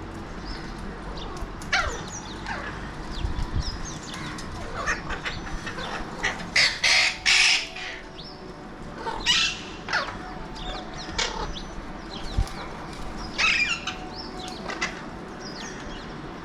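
Alexandrine parakeets calling: a string of short, harsh screeches and squawks, the loudest burst about halfway through.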